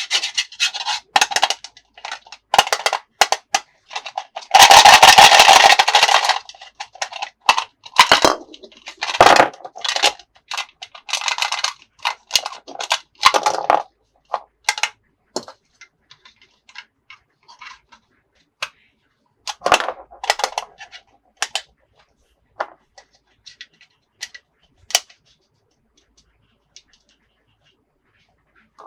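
Hands unboxing toys: plastic packaging and toy parts crinkling, rustling and clicking, with a loud sustained crackle of packaging about five seconds in. The handling then thins out to scattered clicks and taps.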